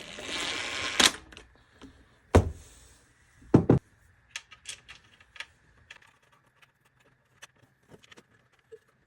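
Metal hand tools clinking and knocking during engine work: a short scraping rush, three sharp knocks a little over a second apart, then scattered light clicks.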